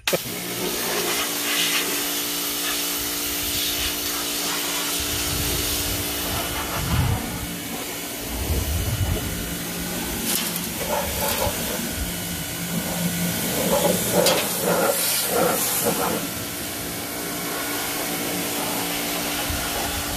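Electric pressure washer running: a steady motor hum under the hiss of the water jet spraying the tractor's engine and frame. It kicks on abruptly at the start, and the spray noise swells and eases as the jet moves over the metal.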